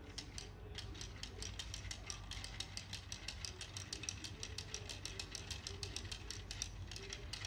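Plastic gears, crankshaft and pistons of a Lego Technic 858 Auto Engines model clicking rapidly and evenly, about six or seven clicks a second, as its flywheel is turned by hand.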